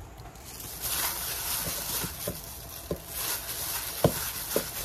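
Julienned radish being tossed with chili flakes and seasoning by a plastic-gloved hand in a stainless steel bowl: a steady rustle and squish of glove and wet radish strips that starts about a second in, with a few light knocks against the bowl.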